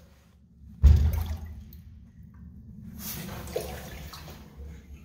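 A sudden heavy thump in the toilet drain line, from a burst of air shot down the clogged line with an air-powered drain gun. Water sloshes and gurgles in the bowl after it, with a second swell of water noise around three seconds in.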